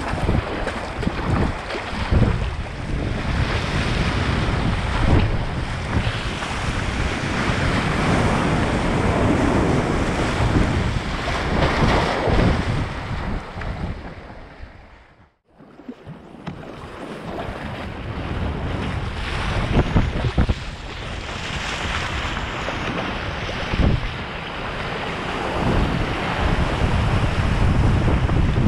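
Wind buffeting the microphone of a kayak's deck-mounted action camera, with sea water rushing and splashing along the hull as the sea kayak rides rough waves. The sound fades out to silence about halfway through and then fades back in.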